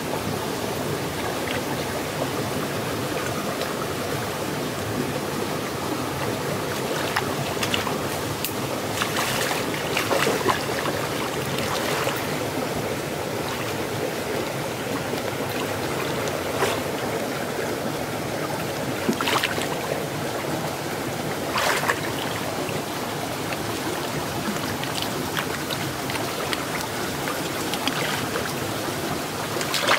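Steady rush of a flowing stream, with occasional splashes and sloshes from a person wading and working his hands in the water.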